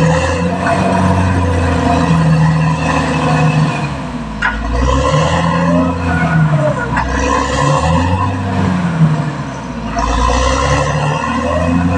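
Caterpillar D6R XL crawler bulldozer's diesel engine working under changing load, its pitch rising and falling every second or two as the blade digs. Recurring short bursts of high squealing and scraping come from the tracks and blade.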